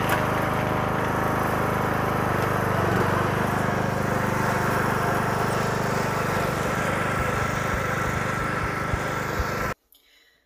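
Riding lawn mower engine running steadily as the mower drives across a lawn; the sound cuts off abruptly near the end.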